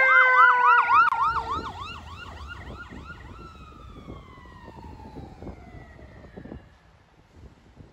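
Fire engine siren on a fast yelp as the truck passes close, loud at first and fading within about two seconds, with a steady siren tone sliding slowly lower beneath it. A second siren tone falls in pitch from about three seconds in and dies away, over the low rumble of the passing vehicles.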